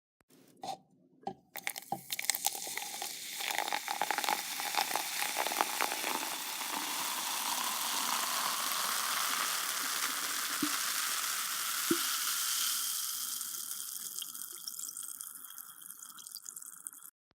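Liquid running or pouring into a container, preceded by a few clicks. It hisses steadily for about twelve seconds while a faint tone slowly rises as the vessel fills, then tapers away.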